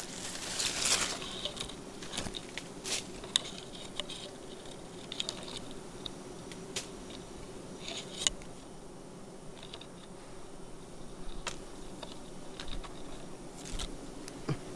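Twigs and leaves rustling and snapping in scattered sharp clicks as gloved hands work through the branches around a wild honeybee nest. A steady hum of honeybees runs underneath.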